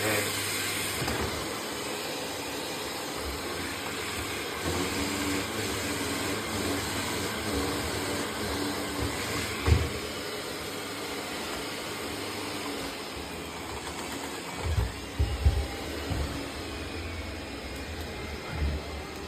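Yadea Fairy10 robot vacuum running mid-clean: a steady whirring hiss from its suction motor, with a few short low thumps about halfway through and again a few seconds later.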